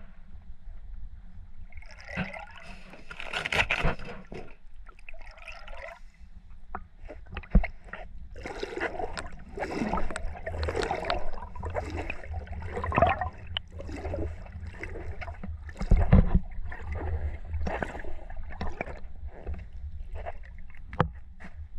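Shallow water sloshing and gurgling close to the microphone in irregular splashes, with a low rumble underneath. There are sharp knocks throughout, the loudest two about a third and about three-quarters of the way in.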